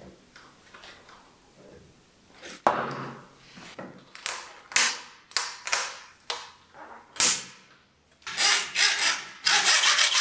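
Hand tools at work: a sharp knock about two and a half seconds in, then a series of separate scraping strokes, quickening into rapid back-and-forth rasping strokes near the end.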